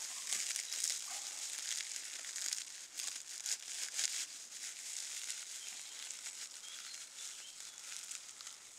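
Dry grass being rubbed and twisted between the hands, roughed up into fine tinder: a steady, crisp crackling rustle that eases off a little near the end.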